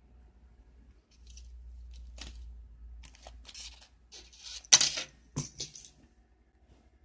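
Small hard clicks and clatters with some rustling as keychain straps and their packaging are handled, with a low rumble of handling on the microphone early on. The sharpest click comes near five seconds in.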